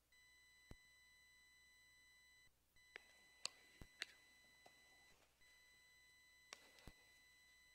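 Near silence with a faint, steady high-pitched electronic whine that cuts out briefly twice. A handful of soft clicks and knocks are scattered through it, the sharpest about three and a half and four seconds in.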